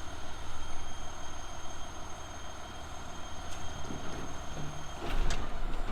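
Steady low machine rumble, with a single knock about five seconds in.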